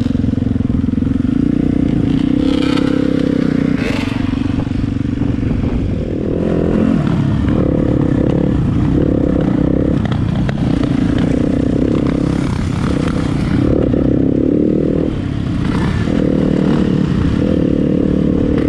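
Dirt bike engine running under throttle while riding a loose gravel trail, with the note easing briefly about six seconds in and again near fifteen seconds, along with the clatter of the bike over stones.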